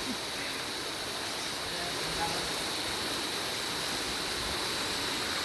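Rushing water from a waterfall or fast stream, a steady even rush with a thin, steady high whine over it.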